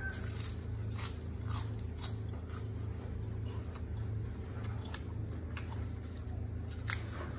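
Close-up chewing of a mouthful of fresh lettuce leaves: crisp crunches and wet chewing, with irregular sharp cracks throughout, over a steady low hum.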